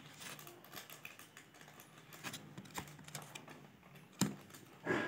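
Scattered light clicks and taps of a small circuit board and its parts being handled, with one sharper knock about four seconds in, over a faint low hum.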